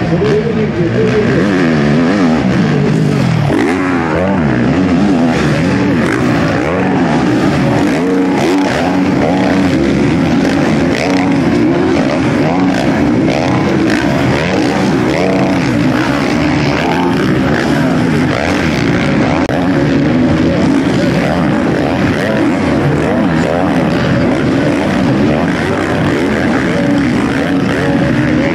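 Several 500 cc motocross bike engines revving at once, their pitch rising and falling over and over as the riders open and close the throttle.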